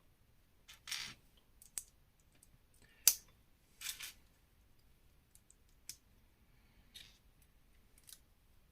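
Lego plastic pieces being handled and pressed together: scattered sharp clicks and short rattles, the loudest a sharp click about three seconds in.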